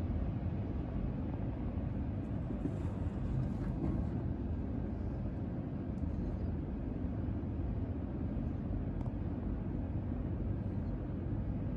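Steady low rumbling background noise with no distinct events, with a few faint ticks.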